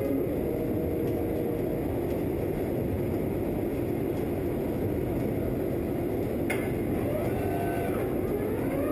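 Industrial robot arm moving, its servo drives whining up and down in pitch near the end, over a steady factory machinery hum. A sharp click comes about two thirds of the way in.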